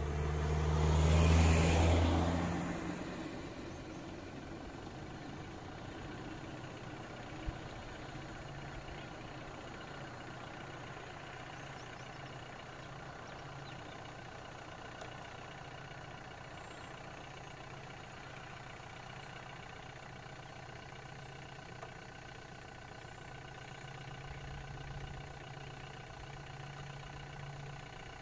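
Vehicle engine idling steadily. Over the first three seconds the engine noise is louder, swelling and then fading.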